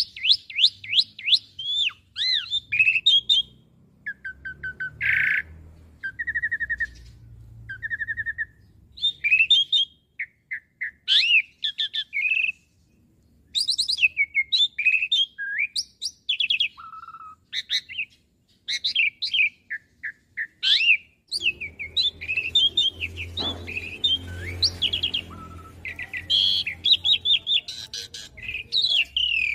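Asian pied starling singing a long, varied song of rapid chirps, whistles and trills in quick runs with short pauses, including repeated two-note whistles. A faint low rumble runs under it in the second half.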